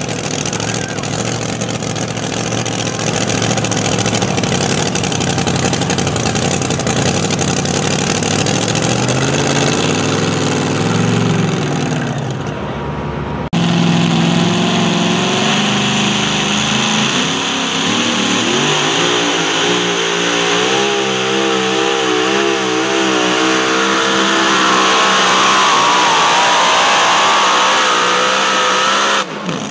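Super modified two-wheel-drive pulling truck engines running loud. About halfway through the sound changes suddenly to a second truck's supercharged engine revving, its pitch wavering and climbing.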